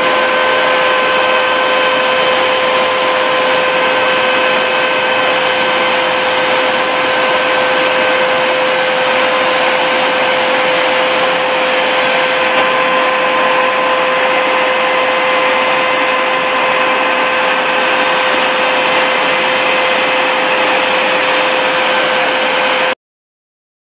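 Electric notch-cutting machine for timber beams running, its motor-driven cutter drum milling a cup notch into a profiled wooden beam. It is a loud, steady whine with a constant tone over a hiss, and it cuts off suddenly near the end.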